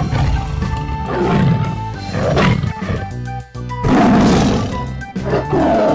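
Background music with a tiger-like roar cutting in over it, about two seconds in and again around four seconds in.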